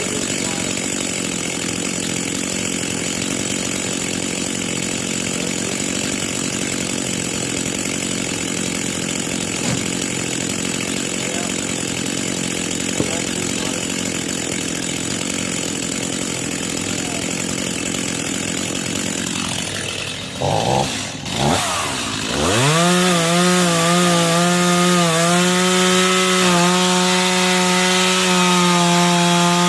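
Two-stroke chainsaw running at high revs through wood for about twenty seconds. It briefly throttles down and back up, then holds a steady high whine at full throttle to the end.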